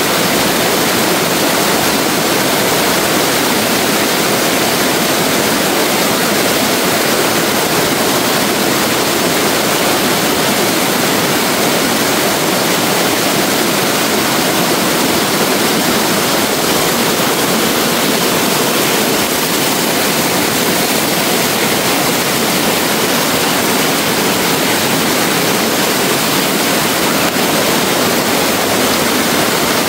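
Steady rushing of flowing stream water, an even hiss with no break or change.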